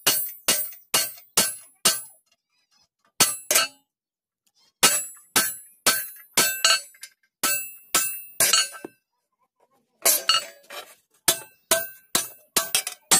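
Hand hammer striking a cold chisel on a thin iron sheet over a steel bar, cutting along marked lines: sharp, ringing metallic clinks about two to three a second, in runs broken by brief pauses.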